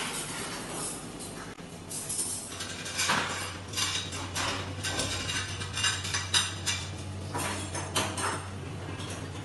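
Ceramic plates and cutlery clattering as they are handled and stacked on a stainless steel counter: a string of irregular clinks and knocks. A steady low hum runs underneath.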